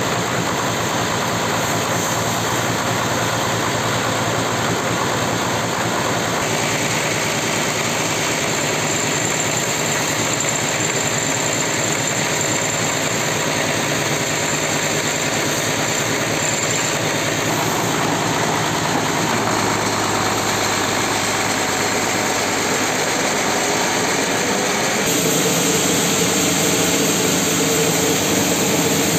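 Log band sawmill running steadily with a mahogany log on its carriage, a dense continuous machine noise. Its tone shifts a few times, most clearly about twenty-five seconds in.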